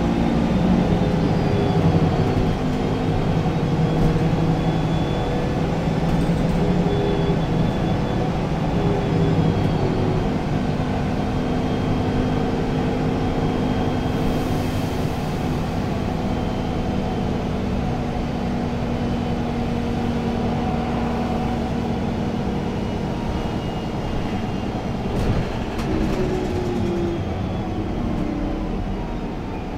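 Inside the passenger cabin of an Irisbus Agora L articulated city bus under way: a steady engine and road drone with a hum that slides slowly up and down in pitch a few times.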